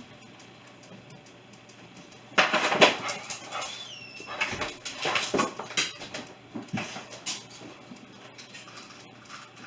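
A pet animal whining and yelping in a series of short calls, starting suddenly about two seconds in and dying away about five seconds later.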